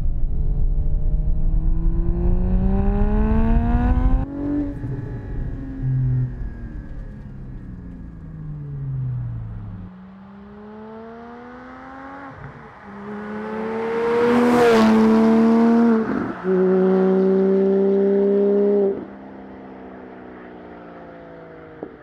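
Porsche 718 GT4's flat-six engine through a Soul Performance race exhaust, accelerating at moderate throttle. The revs climb for about four seconds, break at a shift and fall away as it eases off, then climb again from about halfway, hold steady briefly and drop off near the end.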